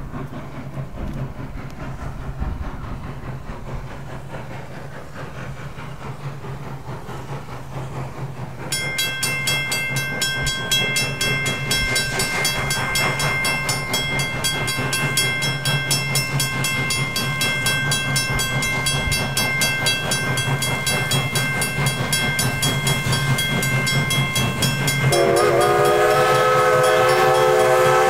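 Everett Railroad No. 11, a 2-6-0 Mogul steam locomotive, working toward the listener with a low steady rumble. About nine seconds in, a bell starts ringing with rapid repeated strikes and keeps on. Near the end the locomotive's steam whistle blows a long note.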